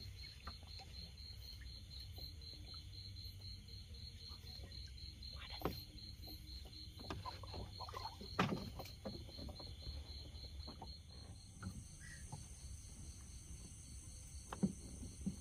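Night insects chirping in a fast, even pulsing rhythm over a low steady hum, with a few short knocks scattered through.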